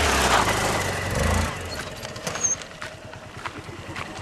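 Motorcycle engine running hard, then falling to a quieter, evenly pulsing idle about a second and a half in, with a few sharp clicks and knocks.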